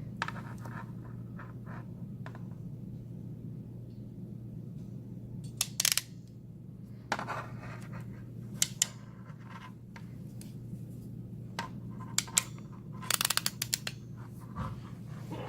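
Crimping tool pressing the center pin onto a coax cable's conductor: scattered sharp metallic clicks from about six seconds in, ending in a quick run of clicks near the end, over a steady low hum.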